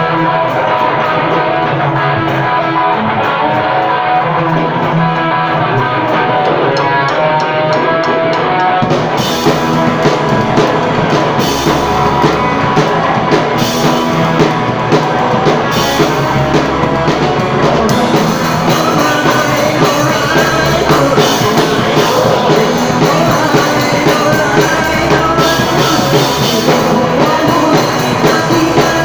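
Rock band playing loud: guitar-led at first, then the drum kit with cymbals and the bass come in about nine seconds in and the full band plays on.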